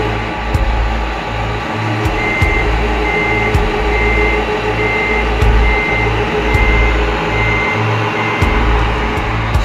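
Reversing beeper on a radio-controlled construction truck: a single steady tone beeping evenly, a little over once a second, nine times from about two seconds in, over a constant whir of running machinery with a few faint clicks.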